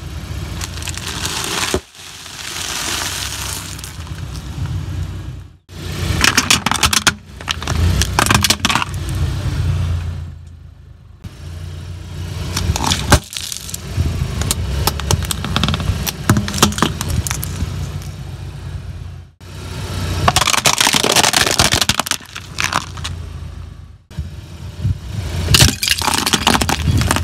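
Car tyre rolling over and crushing objects in a run of short clips, among them a bag of crisps, plastic disposable lighters and a plastic bowl of water beads. The plastic crackles and cracks under the tyre over a low car engine hum, and each clip cuts off suddenly into the next.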